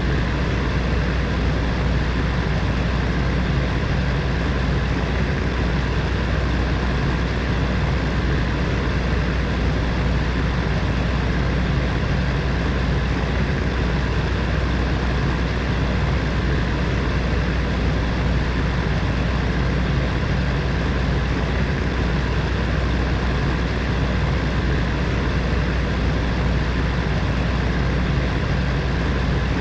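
Heater fan running steadily: a constant rush of air over a low hum.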